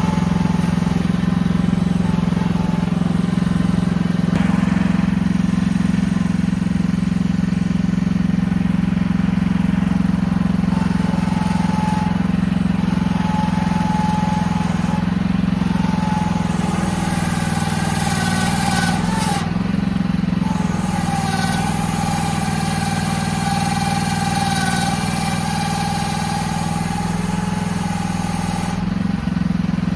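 AGT QH12R mini excavator's engine running steadily, with a higher whine that comes and goes and a hiss over the second half.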